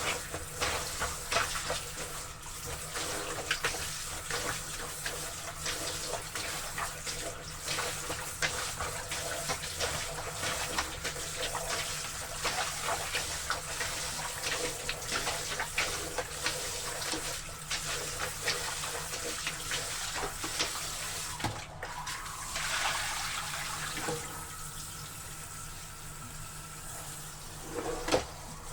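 Laundry being washed in water: irregular splashing and sloshing for most of it, settling to a quieter, steadier water sound in the last few seconds.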